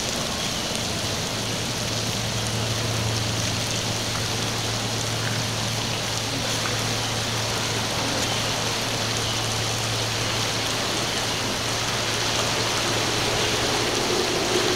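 Steady hiss of rain over choppy inlet water washing against jetty rocks. A steady low hum runs underneath from about a second in.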